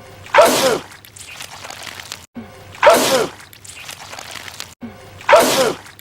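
A man sneezing loudly, the same sneeze repeated three times about two and a half seconds apart. Each is a sharp burst with a falling cry.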